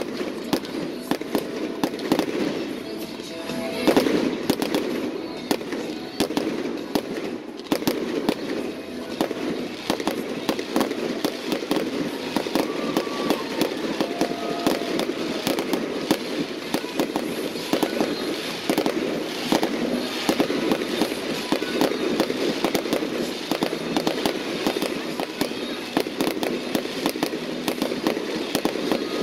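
Fireworks going off continuously: dense rapid crackling and popping from bursting aerial shells and crackle stars, with a louder bang about four seconds in.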